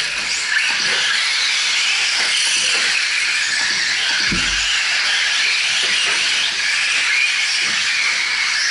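Several electric radio-controlled 4WD short-course trucks racing on a dirt track: a dense, high-pitched motor whine that wavers up and down with the throttle. A low thump sounds about four seconds in.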